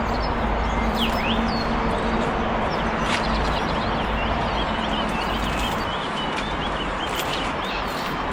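Small birds chirping repeatedly over a steady outdoor hiss, with a low steady hum that fades out about halfway through.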